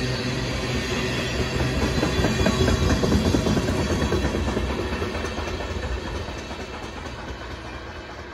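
Loaded ethanol tank cars of a freight train rolling past on the rails, the wheels clattering over the track. The noise is loudest about three seconds in and then fades as the end of the train moves away.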